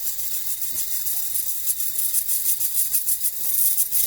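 Fuel injectors firing on an injector cleaning and test bench, spraying fuel as a high, rapidly pulsing hiss that grows louder near the end. This is a flow test of the cleaned injectors.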